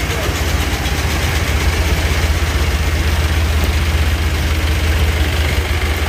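Engines of small pickup trucks idling in a queue: a steady, low, pulsing rumble.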